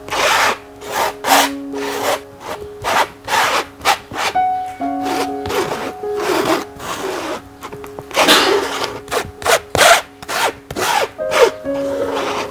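Metal palette knife scraping and spreading thick acrylic paint across a stretched canvas in quick, repeated strokes, over soft background music.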